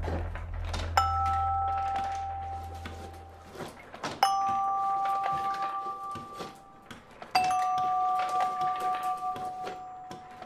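Wooden marble machine's vibraphone ringing out three two-note chords about three seconds apart, each left to ring and fade, with light clicks between them. A low hum fades out over the first few seconds.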